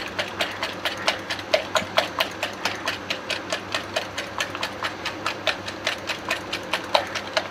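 Fork beating an egg and condensed-milk mixture by hand in a glass measuring jug, its tines clicking against the glass in a steady rhythm of about five strokes a second.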